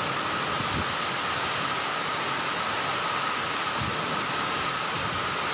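Heavy rain pouring down in a steady hiss, with a couple of faint low thumps.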